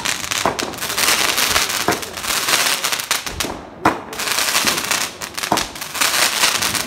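A '12 shot' multi-shot aerial firework cake firing: sharp bangs about every one to two seconds over a continuous crackling hiss.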